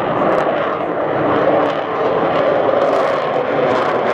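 Avro Vulcan jet bomber's four Rolls-Royce Olympus turbojets running loud and steady as the aircraft banks overhead.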